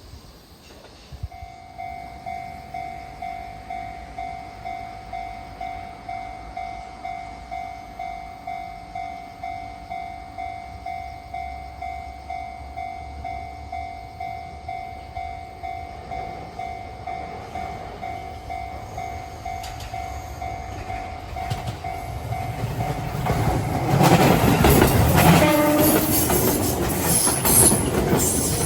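Japanese level-crossing warning bell ringing a steady electronic clang, about two strikes a second, starting about a second in. Near the end a train arrives and passes over the crossing, its wheels clattering loudly on the rail joints and drowning out the bell.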